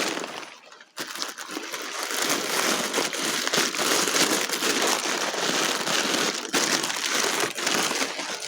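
Packing wrap crinkling and crackling continuously as a crystal is unwrapped by hand, starting about a second in.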